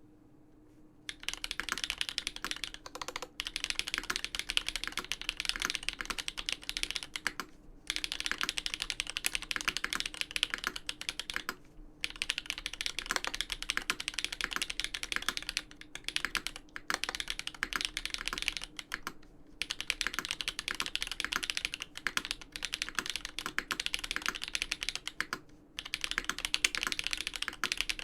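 Fast continuous typing on a custom mechanical keyboard with Everglide Dark Jade linear switches, an aluminium plate and GMK keycaps, a dense stream of key clacks. It starts about a second in and comes in runs of a few seconds with brief pauses between them.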